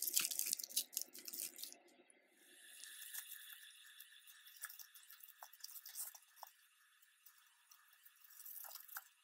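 Faint clicking and light jingling of pearl beads and metal chain links knocking together as a tangled cluster necklace is handled and pulled apart.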